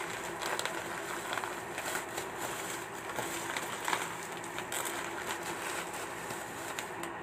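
Clear plastic packaging crinkling and rustling as a parcel is handled and opened, with many small irregular crackles over a steady background hiss and faint hum.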